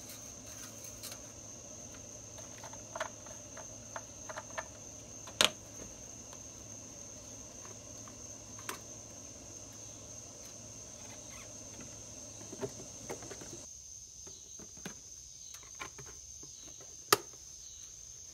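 Plastic quart oil bottle and oil filler cap handled at the engine's filler neck: scattered sharp clicks and taps, the loudest about five seconds in and another near the end, over a steady high-pitched tone.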